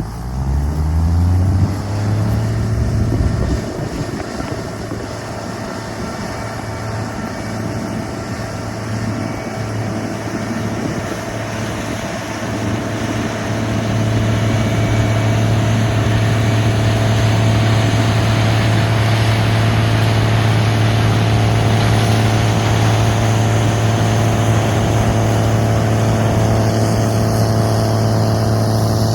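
Harvest machinery engine revving up at the start, its pitch rising over the first couple of seconds, then running steadily under load with a deep steady hum. It gets louder about 14 seconds in and holds there.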